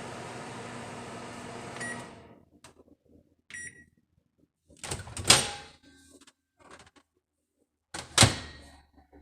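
Advantium 120 microwave oven running with a steady hum that stops about two seconds in, followed by a short beep. Then come two loud clunks about three seconds apart, like its door being opened and shut.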